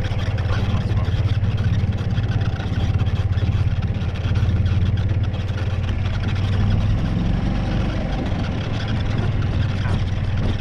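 Engine of a slow-moving vehicle running steadily at low speed: a low, even hum with a rapid regular pulse.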